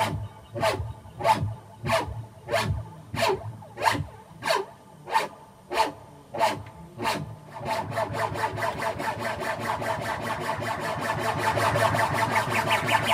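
Electronic dance music from a live DJ mix: a short sample with a falling pitch repeats about one and a half times a second. About eight seconds in it gives way to a fast drum-roll build-up that grows slowly louder and brighter.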